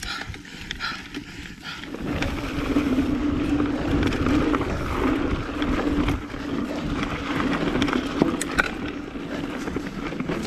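Lapierre Zesty full-suspension mountain bike speeding down a dirt trail: tyres rolling and rumbling over the ground, wind on the microphone and occasional rattling clicks from the bike. It gets louder about two seconds in, where a steady buzz sets in and holds through most of the run.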